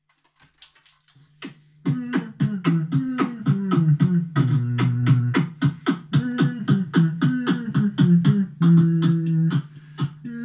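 Beatboxing into a handheld microphone. A few scattered clicks come first, then from about two seconds in a fast, even beat of about four hits a second runs over a low pitched line that steps up and down.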